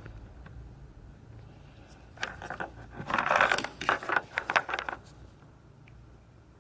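A burst of clattering and scraping, like small hard objects or tools being handled, starting about two seconds in and lasting about three seconds.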